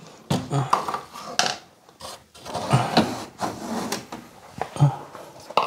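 Uneven knocks, scrapes and rubbing of hard objects being handled at close range, with a scatter of sharp clacks.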